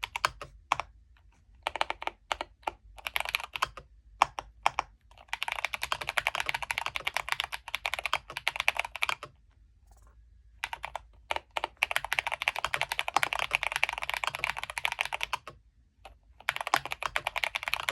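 Typing on a full-size, all-aluminium custom mechanical keyboard with fully lubed switches: a few scattered keystrokes at first, then long runs of fast, steady typing broken by short pauses.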